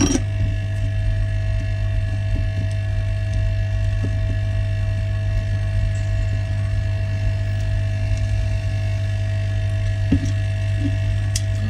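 Steady electrical hum, strongest low down, with a few thin steady tones above it, and a couple of faint light taps near the end.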